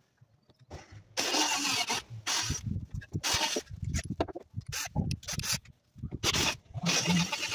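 Cordless drill-driver run in short bursts, driving screws to fit a grille over a Land Rover Freelander headlight, with rubbing and handling noise between runs.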